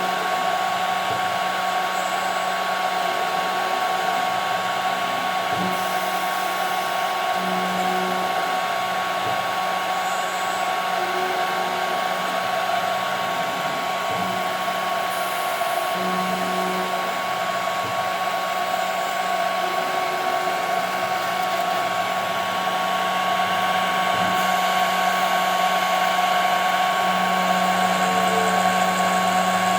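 CNC router spindle running steadily with a high whine as it machines 5 mm plexiglass, with a lower hum that comes and goes every few seconds. It grows slightly louder near the end.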